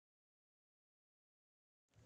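Silence: the soundtrack is blank, with sound cutting in abruptly just before the end.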